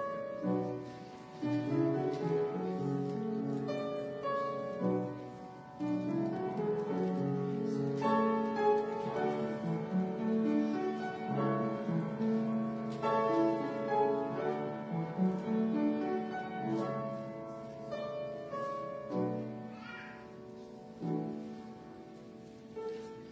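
Keyboard instrument playing slow music of held chords, the notes changing every second or two.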